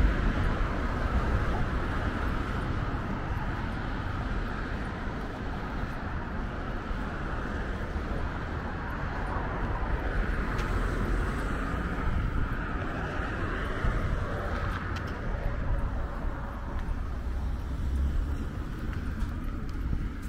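Street traffic: a steady wash of car engine and tyre noise from vehicles going by.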